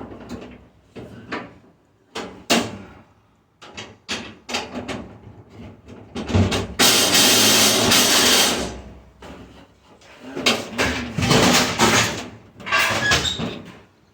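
Hand tools clanking and knocking against the stainless steel body of a restaurant dishwasher as it is taken apart, with a loud scraping noise lasting about two seconds midway through.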